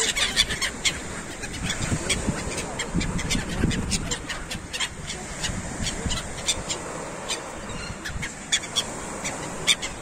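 A flock of gulls calling in many short, sharp cries, over the steady wash of sea surf.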